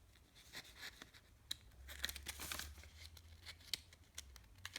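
Paper leaflets being handled and their pages turned: faint, scattered rustles, crinkles and small clicks.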